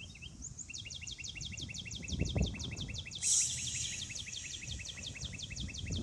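A songbird singing a long, fast trill of short repeated chirps, about eight a second. A brief hiss comes about halfway through.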